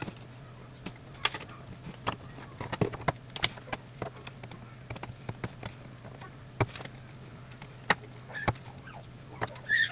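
Irregular sharp clicks and taps of small metal parts being handled and fitted by hand, over a steady low electrical hum.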